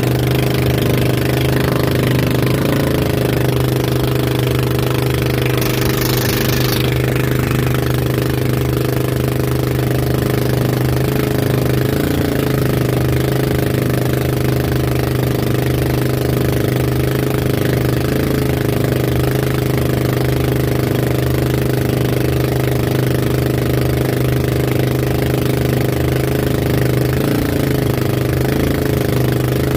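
Engine of an outrigger boat running steadily under way while towing, a strong even drone with the rush of water and spray over it. A brief hiss of spray or wind about six seconds in.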